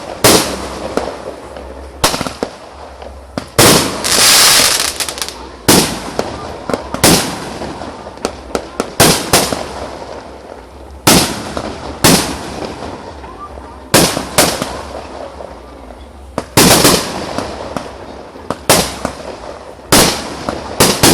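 Fireworks show: aerial shells bursting in a steady series of sharp bangs, about one a second, each trailing off in a short echo. About four seconds in, a louder sustained crackling hiss lasts just over a second.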